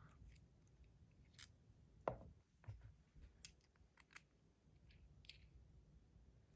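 Faint scattered clicks and light taps of small metal parts being handled: stainless steel end caps being fitted onto a bronze fidget spinner, with one louder knock about two seconds in.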